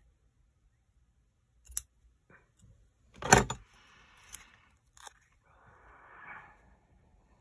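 A single sharp snip of scissors cutting a ribbon end, then a louder knock on the craft table, followed by soft rustling as fingers press and rub a paper tag onto cardstock.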